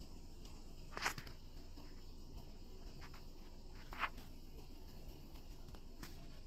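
Quiet room tone with two brief soft noises, one about a second in and one about four seconds in.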